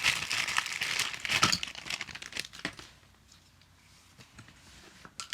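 Crinkling and rustling as Play-Doh tools and packaging are handled, dying away after about two and a half seconds, with a single sharp click near the end.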